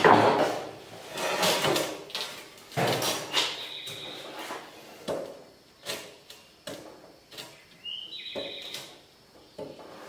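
A length of steel angle iron, cut from an old bed rail, being slid and scraped along a bench and clattered into the vise of a chop saw, with several knocks; a few of them leave the steel ringing briefly with a high tone. The saw motor is not running.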